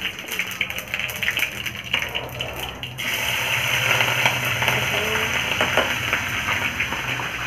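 A spatula scraping chopped green chillies off a plastic cutting board into hot oil in a karahi. About three seconds in, the oil starts to sizzle and crackle loudly as they hit it, and keeps sizzling.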